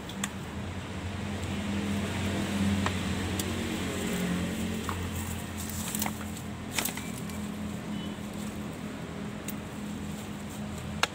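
Hands working in dry leaf litter, soil and roots at the base of a fig sapling, giving scattered small clicks and snaps, over a steady low engine hum.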